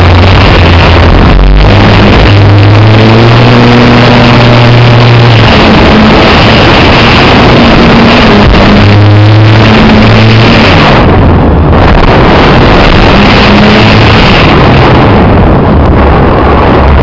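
Electric motor and propeller of a PA Addiction 3D RC plane heard from an onboard camera, buzzing with heavy wind rush. The sound is overloaded and distorted, and its pitch shifts every few seconds as the throttle changes.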